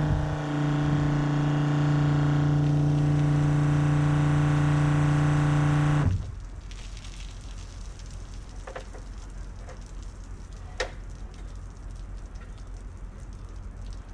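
12-volt Flojet diaphragm pump of a soft-wash rig running steadily with a loud hum, feeding the spray wand, then cutting off suddenly about six seconds in. A few faint taps follow.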